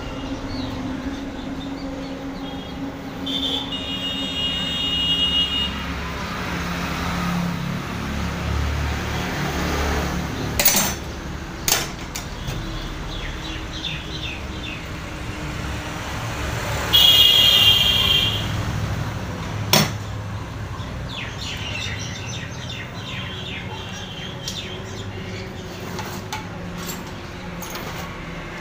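Steady road traffic noise, with two short high-pitched tones, one a few seconds in and one past the middle. A few sharp knocks come from a 24 V excavator starter motor being taken apart on a workbench.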